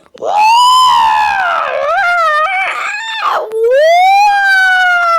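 Two long, high wailing cries from a cartoon character's voice, like a howl. The first wavers up and down in pitch; the second starts about three and a half seconds in, rises, then slowly falls.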